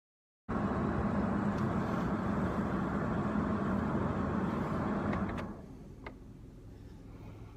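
Vehicle engine running with a steady low hum, dropping to a quieter steady noise about five seconds in, with a few faint clicks.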